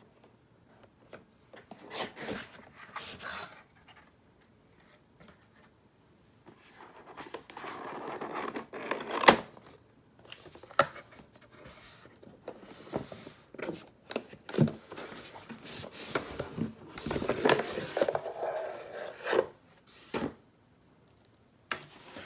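A taped-up cardboard keyboard box being opened and its packaging handled: irregular scraping, rubbing and rustling with scattered sharp clicks, the loudest click about nine seconds in.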